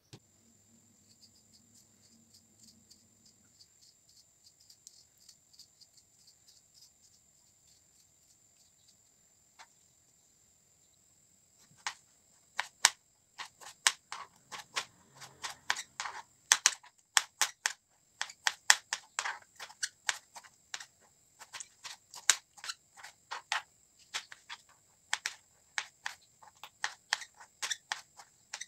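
Kitchen knife chopping peeled tomatoes on a plastic cutting board: quick, irregular taps, several a second, starting about twelve seconds in. Before that there is only a faint, steady, high-pitched whine.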